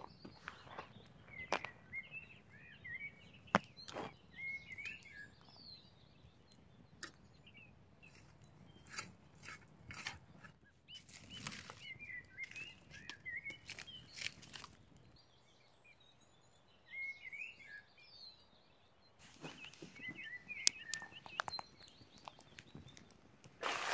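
Wood campfire crackling with scattered sharp pops and knocks as burning sticks are poked and shifted. A small bird twitters in quick bursts of chirps, several times over.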